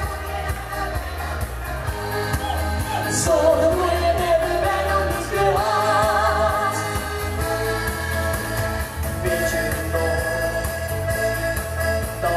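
Pop duet sung by a boy and a girl into microphones over amplified backing music with a steady bass beat.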